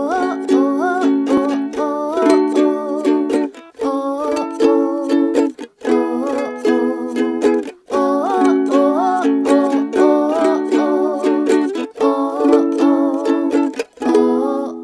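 Ukulele strummed with a woman singing a wavering melody over it, in short phrases broken by brief pauses.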